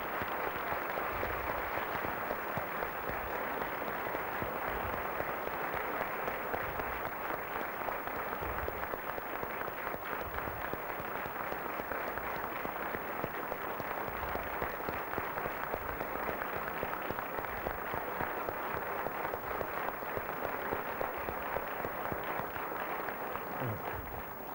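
Theatre audience applauding, a steady wash of many hands clapping that dies away near the end.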